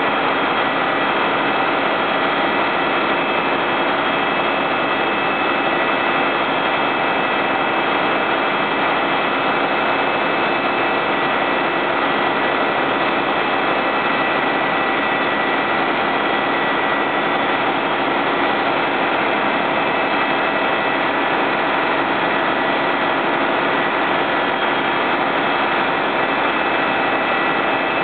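Fire brigade turntable ladder truck's diesel engine running steadily, powering the ladder's hydraulics, with a faint steady whine over the engine noise.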